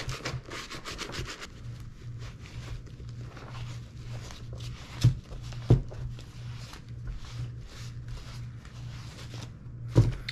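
A dauber brush scrubbing saddle-soap lather into a leather boot in quick, rapid strokes, then a cloth towel rubbing and wiping the leather for the rest of the time. Two sharp knocks come about five seconds in and another near the end.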